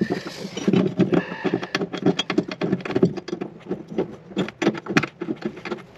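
Rapid, irregular clicks and rattles of metal hardware being worked by hand while a fastener is tightened.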